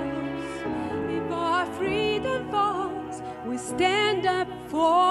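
A woman singing a slow, tender ballad with vibrato over instrumental accompaniment.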